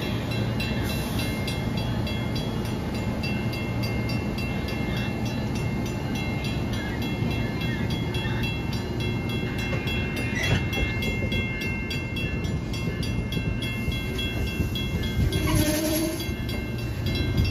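Amtrak passenger train's stainless-steel coaches rolling slowly past at close range: a steady rumble and clatter of wheels on rail, with thin high tones running over it.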